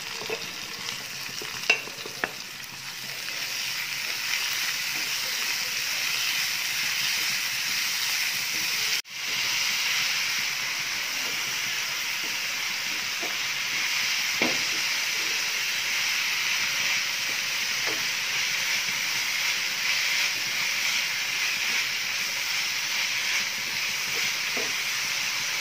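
Boiled banana flower sizzling in a metal pan of sautéed onions and green chillies while a wooden spatula stirs it round. The sizzle is steady and grows louder about three seconds in as the vegetable heats, with a few light spatula scrapes near the start.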